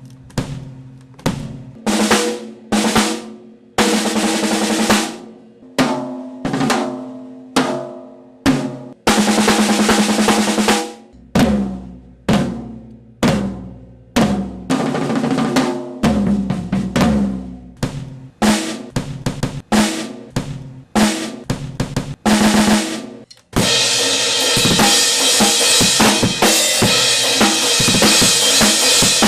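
Acoustic drum kit being played: single snare, bass drum and tom hits and short fills with ringing drum tones. About 23 seconds in, it breaks into a steady beat under a continuous wash of cymbals.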